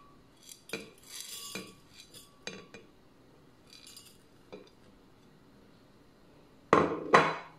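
A porcelain plate clinks and taps against a glass blender jar as spices are tipped in, one tap leaving a short glassy ring. Near the end come two louder knocks.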